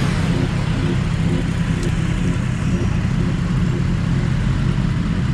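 Motorcycle engines idling and running at low revs, a steady engine sound with no changes in pitch.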